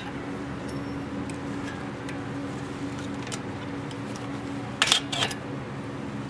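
Metal clicks from needle-nose pliers working a pad-retaining pin and its spring clip out of a Sumitomo brake caliper, in a short cluster a little under five seconds in, over a steady background hum.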